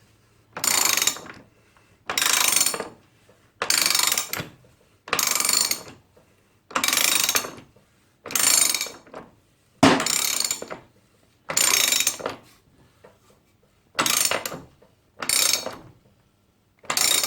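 Ratchet wrench with a 36 mm socket running up a motorcycle's rear axle nut: a burst of ratchet clicking on each back-swing, about every second and a half, with shorter strokes near the end as the nut snugs up.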